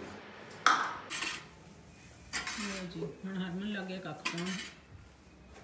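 Stainless-steel pots and utensils clanking against each other in a kitchen sink as they are washed: a sharp clank about half a second in, then more clatter over the next couple of seconds.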